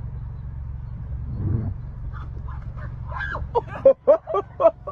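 An animal giving a rapid run of short, pitched calls, about three or four a second, starting about three seconds in over a steady low hum.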